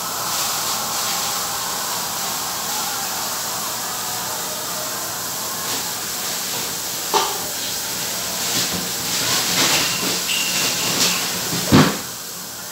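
Steady hissing noise, with a sharp knock about seven seconds in, a few clattering sounds after it, and a louder thump near the end.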